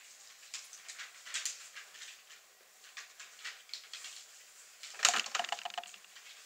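Rustling and light clicking of papers and small objects being handled, in scattered bits through the first four seconds, then a louder, busier burst of rustling about five seconds in.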